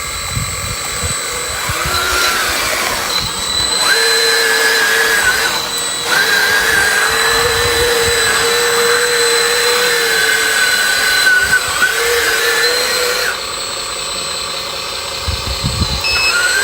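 Electric motor of a radio-controlled hydraulic construction model whining steadily, running in stretches of a few seconds and dropping out briefly twice, with a constant faint high tone beneath.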